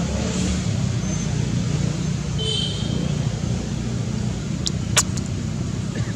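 Steady low rumble. About halfway through comes a short high chirp, and near the end a sharp click.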